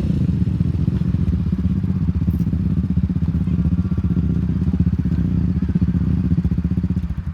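A vehicle engine running steadily: a loud low rumble with fast even pulsing, cut off suddenly near the end.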